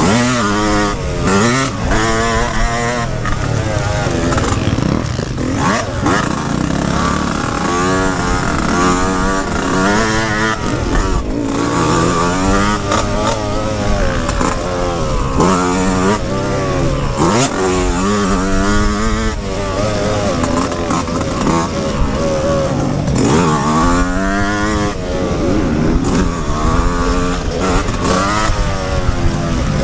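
Yamaha YZ125X two-stroke motocross engine revving hard while racing. Its pitch climbs and drops again and again as the rider accelerates, shifts and backs off.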